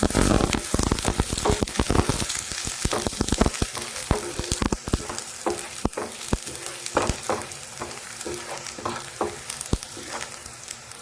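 Chopped garlic and ginger sizzling in hot oil as they are sautéed, with a spatula knocking and scraping against the pan in irregular strokes. The sizzle is strongest at the start and eases off.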